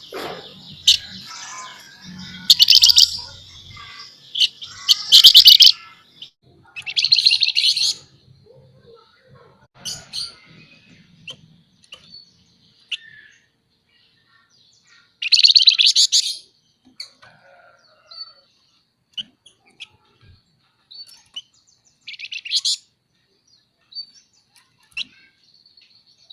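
Flamboyan songbird singing: loud, rapid, buzzy chattering trills, each about half a second to a second long, repeated several times with short high chirps between them.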